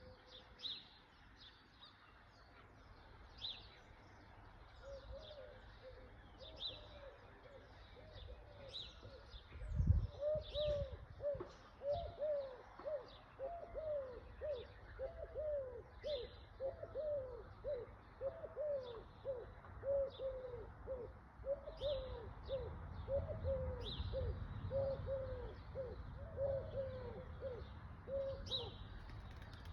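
Village birdsong: a bird repeats short high chirps throughout while a lower call, rising and falling, repeats about twice a second from about five seconds in. A single thump comes about ten seconds in, and a low rumble sits under the calls near the end.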